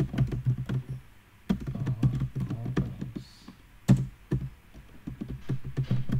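Typing on a computer keyboard: irregular runs of key clicks, with a brief pause about a second in.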